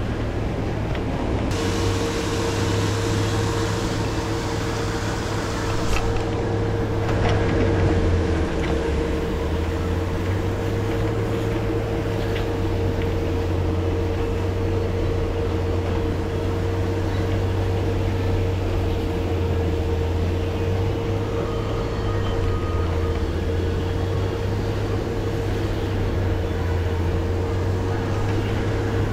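Pond aerator motors running steadily, a low hum with a higher held tone over the rush of churned water.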